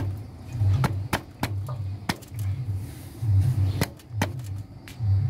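Sharp metal clicks and clinks, a dozen or so at irregular intervals, as a Honda CD-70 clutch housing is worked onto its small sprocket and splines. A low, uneven rumble sits under them.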